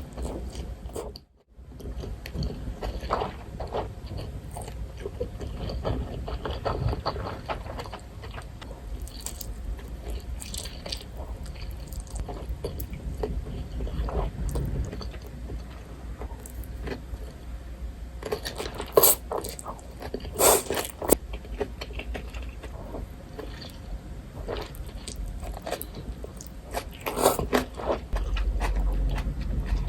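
Close-miked eating sounds: chewing and crunching on food from a meal of yakisoba and karaage, with a few louder crunches past the middle and near the end. The sound briefly drops out about a second in.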